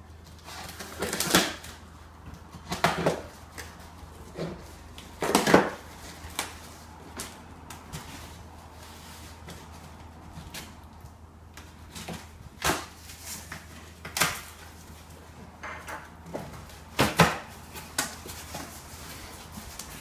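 Packing tape being pulled and torn off a cardboard box in short noisy rips a few seconds apart, with the cardboard rustling as the flaps are opened.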